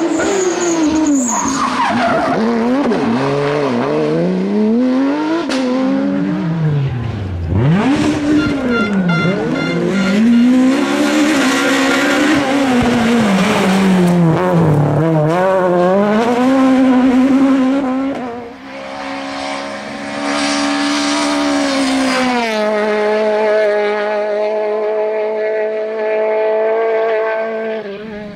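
Rally car engines at full throttle, the note sweeping up and falling back again and again with gear changes and lifts off the throttle, with tyre squeal. Near the end one engine holds a steady high note.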